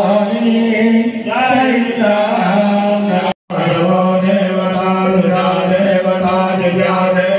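Men chanting Sanskrit mantras in long, slowly stepping held notes into microphones, amplified through a speaker. The sound cuts out completely for an instant about three and a half seconds in.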